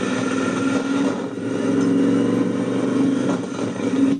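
Motorcycle engines running as the bikes ride off past, a steady engine note that cuts off suddenly near the end.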